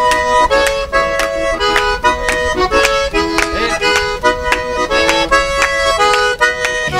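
Diatonic button accordion playing a quick, lively vallenato melody of short notes as an instrumental intro, with hand clapping along.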